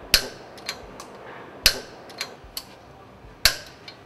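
A series of sharp metal clicks, about two a second with three louder ones, from a torque wrench tightening the bolts that fasten a Grundfos SP submersible pump end onto its motor.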